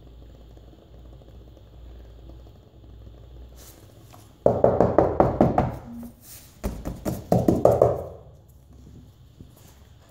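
Hand knocking rapidly on laminate floor planks over a soft spot being filled with injected foam. There are two quick runs of knocks, one about four and a half seconds in and another about a second later.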